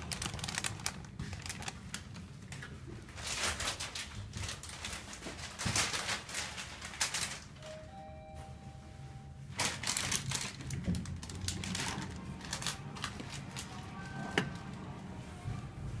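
Inside a Mitsubishi Axcel AI (Grandy) passenger elevator car: irregular clattering and rustling as the car travels. A two-note arrival chime, low then higher, sounds about eight seconds in.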